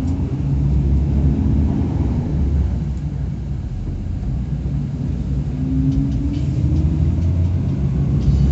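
Intercity bus engine and road rumble heard from inside the cabin as the bus pulls away, a steady low drone whose engine note climbs as it picks up speed.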